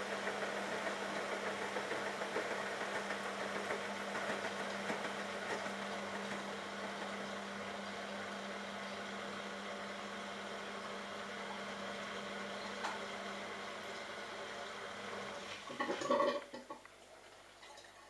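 Bosch Logixx WAS32461GB washing machine on a spin burst: the drum motor hums steadily while water swishes round the drum, held back by the waterlogged pillows in a water lock. About sixteen seconds in there is a short burst of knocking and splashing, then the motor hum stops and it goes much quieter.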